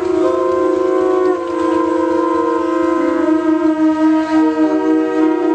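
Several conch shells (shankha) blown together as ritual temple conch-blowing, sounding long held notes at slightly different pitches that overlap into one steady, loud chord. Individual conches drop out and come back in as the players take breath.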